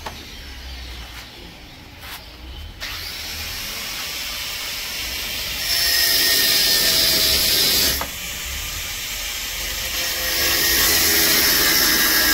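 Electric screwdriver or drill running in two steady bursts of about two seconds each, backing out the screws of a plastic fridge fan cover, with a few light handling clicks before.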